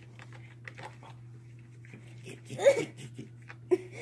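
Light scratching and tapping of a cat's claws on a wooden tabletop as it digs at an object. About two-thirds of the way through comes a short meow that falls in pitch, with a shorter call near the end.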